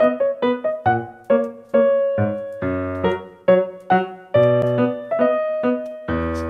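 Background piano music: a light melody of struck notes, about three a second, each ringing and fading.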